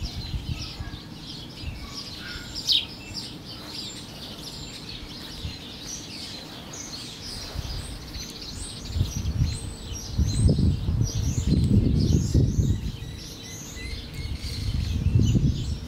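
Small birds chirping: many short, high chirps in quick succession. A low rumbling noise swells up about ten seconds in and again near the end.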